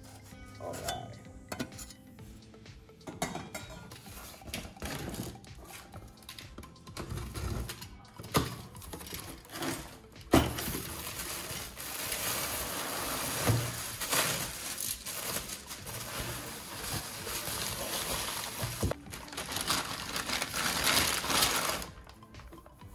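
Scattered knocks and clinks of metal parts being handled. About halfway through, plastic wrapping crinkles and rustles steadily for some ten seconds as an exhaust muffler is unwrapped from its box.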